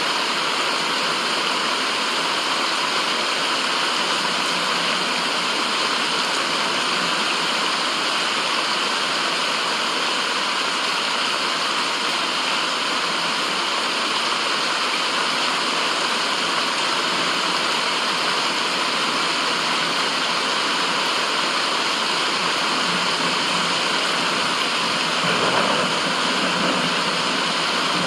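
Steady rushing of flowing water, an even hiss with no rhythm, briefly swelling in its lower part about 25 seconds in.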